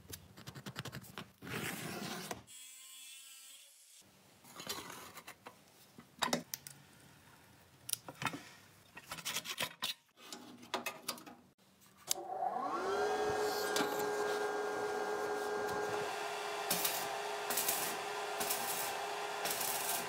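Metalworking noises, with clicks, knocks and scraping of sheet metal. About twelve seconds in an electric motor spins up to a steady whine and keeps running.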